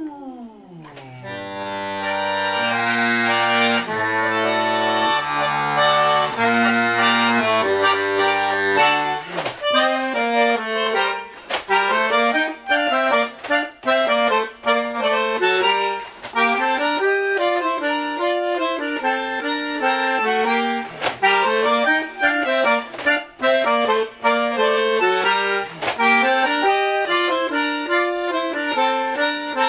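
Bandoneon playing. After a short downward pitch slide at the start, it holds chords over low bass notes for about nine seconds, then switches to a quick, choppy melody of short detached notes.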